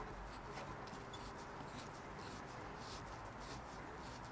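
Faint rubbing and light handling noise as a gloved hand turns the large nut on a hydraulic floor jack's ram cylinder, its threads not catching.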